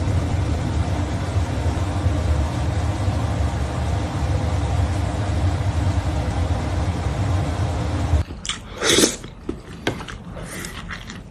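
Steady low rumble for about eight seconds that then cuts off, followed by a few sharp clicks and knocks, one of them louder.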